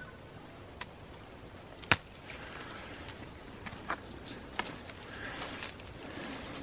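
Pikopiko (hen and chicken fern) shoots snapped off by hand: four sharp snaps, the loudest about two seconds in, with rustling of fern fronds through the second half.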